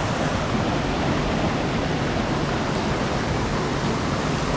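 Mountain river water rushing close by, a steady, even wash of noise.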